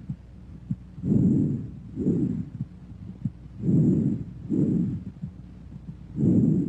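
Bronchovesicular breath sounds heard through a stethoscope: three breaths, each a soft rushing inhale and exhale of about equal length with a brief gap between them. Faint heartbeat thumps sound between the breaths.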